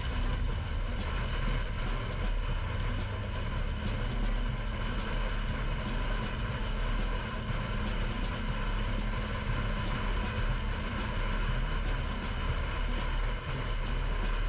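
Car driving at a steady pace: a constant drone of road and engine noise with a low rumble.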